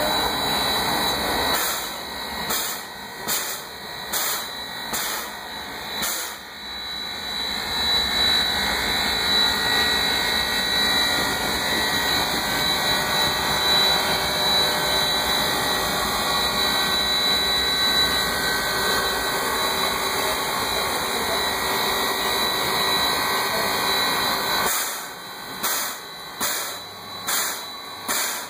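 Small steam locomotive standing with steam up, giving a steady hiss with a thin high tone. The sound is choppier and dips in loudness for a few seconds near the start and again near the end.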